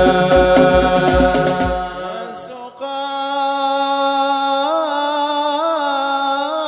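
Sholawat singing over hadroh frame drums beating a steady rhythm. About two seconds in, the drums and singing fall away. After a brief dip, a single unaccompanied voice holds a long, ornamented note with small turns in pitch.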